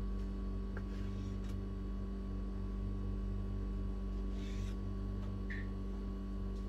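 A kitchen knife cutting slices from a rolled log of dough on a bamboo cutting board, heard as a few faint ticks and a brief scrape about four and a half seconds in. A steady low hum runs underneath and is the loudest sound.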